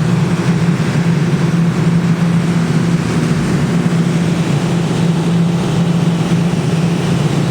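Claw machine humming steadily, a constant low mechanical drone with a noisy hiss over it.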